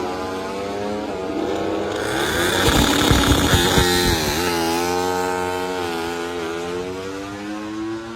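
MotoGP racing motorcycle engines running at high revs. The sound swells to its loudest around three seconds in as a bike comes close, its pitch dips sharply as it goes by, then the engine notes hold and slowly fall.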